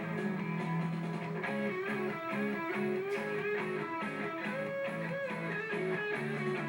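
Guitar music: a plucked and strummed guitar tune playing steadily, with notes changing rapidly.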